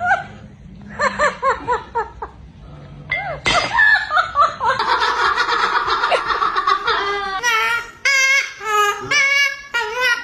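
A talking pet bird imitating human laughter: a quick run of short 'ha-ha' notes, then longer, wavering laughing calls.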